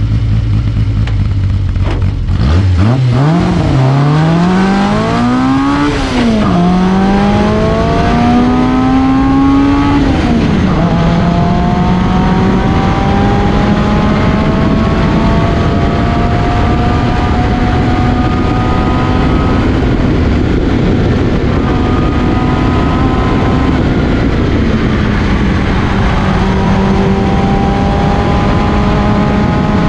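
Reliant 750cc four-cylinder race engine of a Jeffrey Mk3b sports racer, heard from the cockpit: steady revs on the line, then revved hard for the launch about two seconds in, with quick upshifts near four, six and ten seconds. After that it runs at high revs up the hill, with a brief dip about 24 seconds in.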